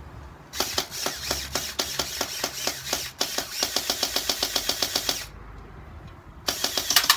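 74U gel blaster (a mini AK) firing on full auto: a rapid, even stream of snapping shots for about four and a half seconds, a pause of over a second, then a second burst starting near the end.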